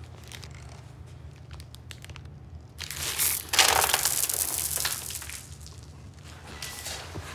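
Small cardboard box of candies tipped up and shaken into the mouth: a loud rattling rush of candies from about three seconds in, lasting around two seconds, with a shorter shake near the end.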